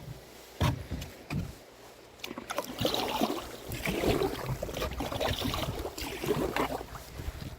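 Canoe paddling: two sharp knocks, then the paddle dipping and pulling through the water with irregular splashing and dripping that eases off near the end.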